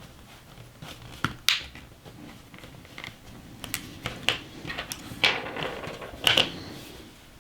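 Small screwdriver prying at the snap-together plastic case of a small electronic key generator: scattered sharp plastic clicks and short scrapes as it works at the case tabs, the loudest clicks a little past the middle.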